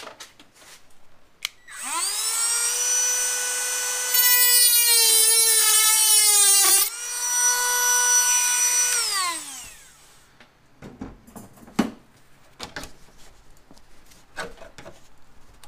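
Dremel rotary tool with a cutoff wheel spinning up to a steady high whine, then cutting into the sheet metal of a car's quarter panel seam for about three seconds, louder with the pitch wavering under the load, before running free again and winding down. A few light clicks and knocks follow.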